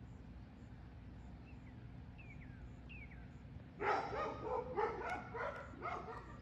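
A dog barking in a quick run of about five barks, starting about four seconds in. Before it, a few faint descending bird chirps.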